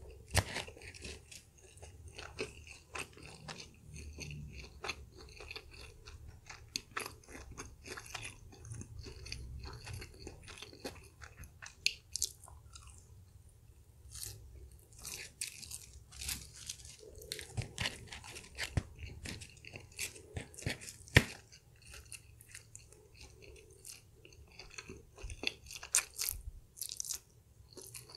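Close-up chewing and crunching of crispy fried chicken, an irregular run of crunches and wet mouth clicks, with a few sharper bites standing out about twelve and twenty-one seconds in.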